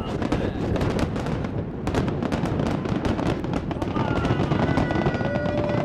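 Fireworks display: dense, rapid crackling and popping as shells burst, with a few steady high tones joining about two-thirds of the way through.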